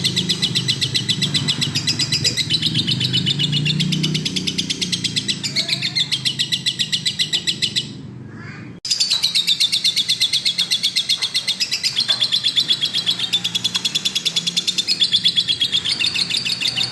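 Lovebird chattering in a long, unbroken run of rapid high-pitched chirps. It breaks off for under a second about eight seconds in, then starts again at full strength.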